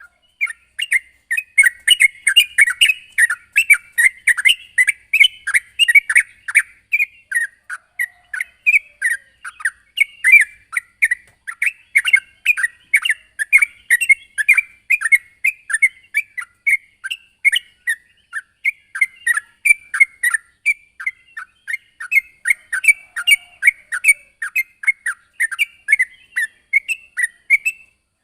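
Yellow-vented bulbul (trucukan) singing energetically: a dense, unbroken stream of short, quick chirping notes, several a second.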